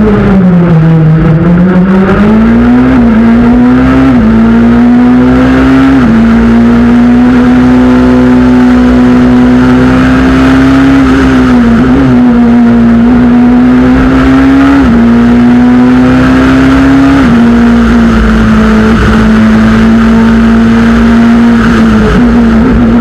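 Peugeot 207 S2000 rally car's naturally aspirated two-litre four-cylinder engine driven hard. The revs sag and pick up again in the first second, then run high with repeated quick gear changes, the pitch dropping sharply every two or three seconds. A few quicker drops come near the end.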